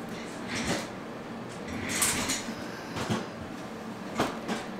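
Handling noise: a few rustling swishes and light knocks as things are moved about beside a plastic takeout bag, with two sharp knocks in the later half.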